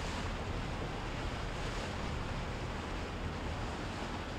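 Steady wash of waves and wind, with a deep rumble underneath and no sudden sounds.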